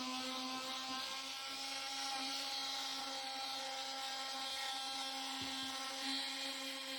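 Electric sander running steadily on a wooden window frame, a constant motor whine over the hiss of sanding.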